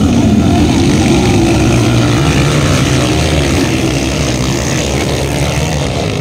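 Several Kawasaki KLX dirt bikes' single-cylinder four-stroke engines racing, revving up and down together in a loud, continuous drone as they take the jumps.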